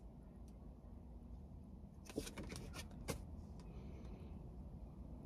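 Quiet low room hum with a quick run of light, sharp clicks about two seconds in, lasting about a second.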